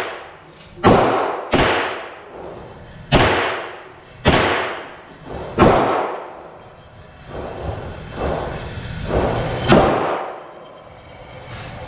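A 9mm AR-15-pattern carbine with a Foxtrot Mike FM-9 upper firing single shots at an uneven pace, about six sharp reports. Each one rings on in the echo of an indoor concrete range.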